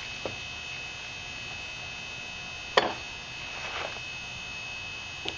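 A single sharp knock about three seconds in, with a couple of fainter clicks, from a wooden-stocked Mosin-Nagant 91/30 rifle being handled. A steady low hum and a thin high tone run underneath.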